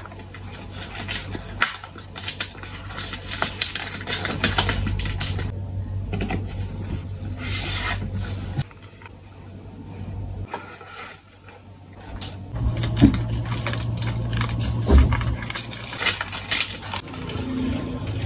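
Hands unpacking a boxed keyboard: rustling and crinkling of packaging and a plastic sheet, with small clicks and light knocks as the cardboard box and lid are handled, in two busy stretches with a quieter spell between. A steady low hum runs underneath.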